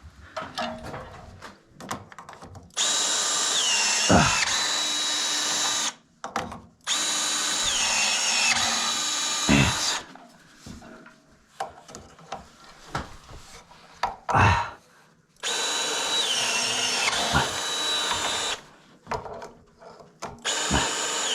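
Power drill running in three bursts of about three seconds each, its high whine dipping in pitch partway through each run as it bogs under load, then recovering; a fourth run starts near the end. Scattered knocks and clicks come between the runs.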